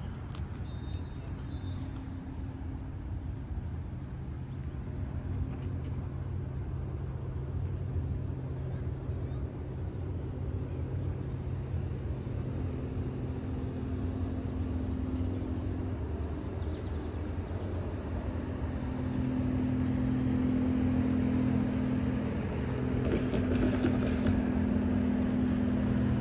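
A steady low engine rumble with a hum, growing louder over the last third.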